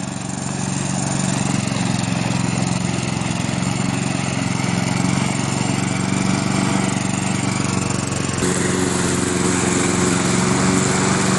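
Solo petrol walk-behind lawn mower engine running steadily as the mower cuts grass, its note shifting slightly about eight seconds in.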